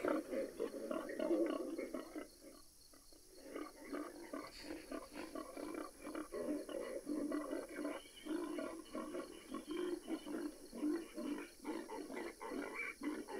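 Convergent Hunting Solutions electronic feral hog caller playing its 'Boar Magnet' call: faint recorded boar grunting in a steady run of short grunts, with a gap of a second or so about two seconds in.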